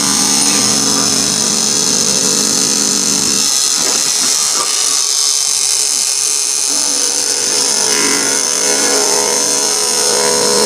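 Electric cloth-cutting machine running steadily as it cuts through canvas fabric, a loud motor whine with a high hiss; its lower hum weakens for a few seconds midway, then comes back.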